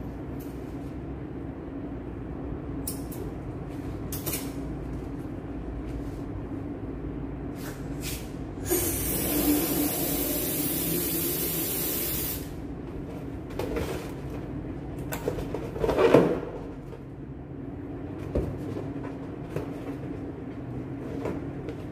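Helium hissing from a cylinder valve into a balloon for about four seconds, starting and stopping abruptly. A few seconds later comes a brief loud rubbery squeak as the filled balloon is handled, with light clicks and a steady low hum throughout.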